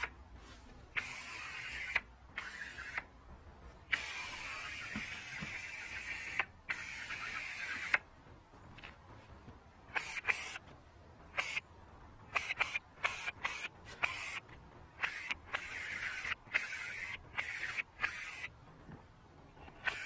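Powder-coating gun spraying powder paint with compressed air, hissing in on-off spurts: one long burst of about two and a half seconds, then many short spurts each starting sharply.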